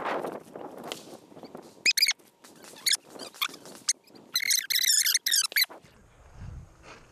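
Repeated sharp squeaks in quick runs, the loudest about four to six seconds in, over footsteps crunching on gravel.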